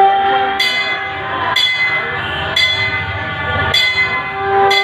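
A bell struck about once a second, each strike ringing on, over a steady held horn-like tone that swells again near the end.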